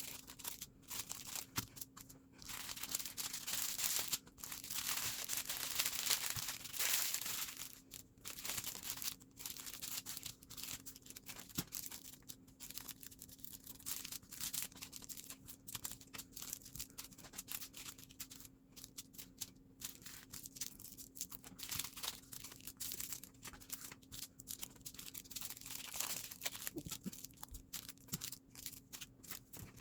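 Small plastic zip baggies of diamond-painting resin drills being handled and sorted, crinkling and rustling with many short clicks; the handling is busiest in the first several seconds.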